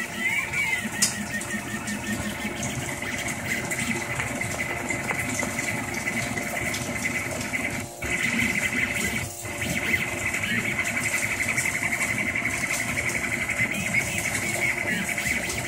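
Rostock MAX delta 3D printer printing: its stepper motors whine in shifting tones as the arms move the print head, over a steady hum. The sound drops out briefly twice, about eight and nine seconds in.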